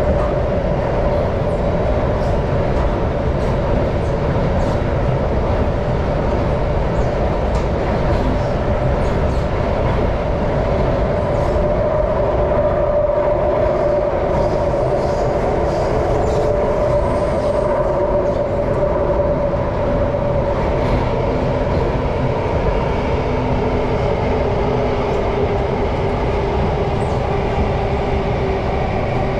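Singapore MRT train running steadily between stations, heard from aboard: a continuous rumble with a humming tone running through it.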